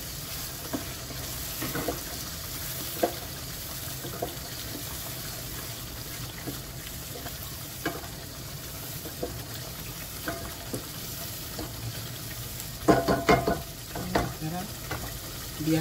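Wooden spoon stirring a thick chilli-tomato sauce simmering and sizzling in a pot, a steady hiss with scattered knocks of the spoon against the pot and a quick run of louder knocks near the end.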